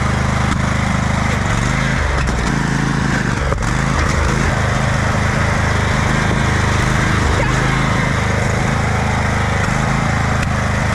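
Riding lawn mower engine running loud and steady, its note shifting a couple of times in the first few seconds.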